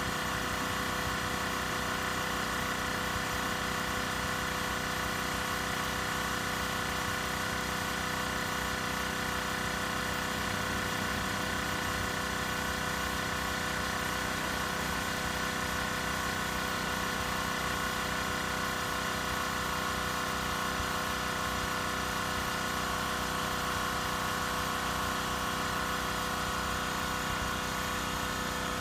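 Makita AC4000 air compressor running steadily, a constant motor and pump hum with a steady whine.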